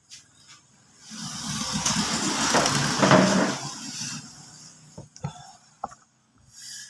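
A motor vehicle passing by: engine and road noise swell over about three seconds and fade away, followed by a few light clicks and taps.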